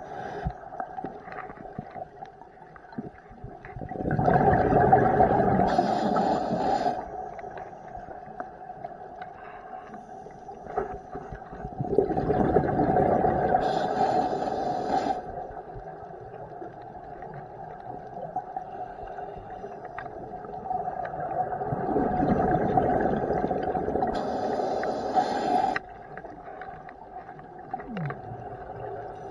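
Scuba diver breathing through a regulator, recorded underwater: three long gushes of exhaled bubbles about every eight to nine seconds, with a steady faint hum between them.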